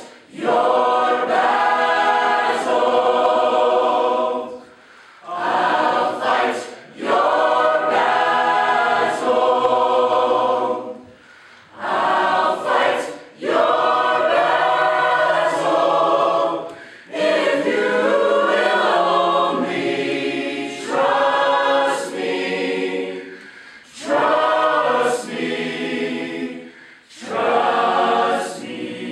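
Mixed choir of men's and women's voices singing unaccompanied, in phrases broken by short pauses.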